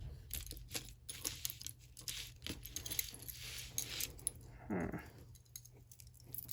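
Light, irregular clinks and ticks of a silver necklace's metal chain and pendant being handled and arranged on a surface, with one short voice-like sound about three-quarters of the way through.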